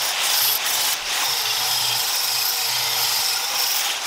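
Angle grinder grinding down welds on 16-gauge steel sheet: a steady high-pitched whine over a harsh hiss of abrasive on metal, with a brief dip about a second in.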